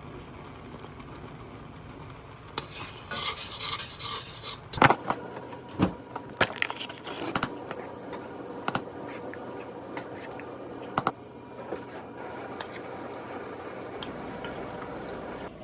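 Kitchen clatter: a short stretch of scraping or stirring, then a run of sharp clinks and knocks, like utensils against dishes and pans.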